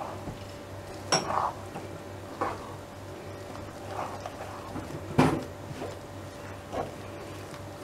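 Wooden spoon stirring a thick salt-cod and egg mixture in a frying pan, scraping and knocking against the pan now and then, with the loudest knock a little past five seconds in. A faint steady hum runs underneath.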